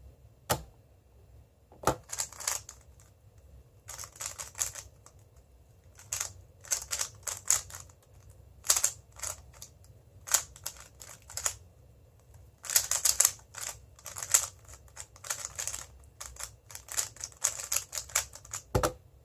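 Moyu WeiLong GTS2M 3x3 speedcube being turned fast during a timed solve: rapid runs of plastic clicking and clacking, broken by brief pauses between bursts. A single sharp knock comes about two seconds in and another near the end.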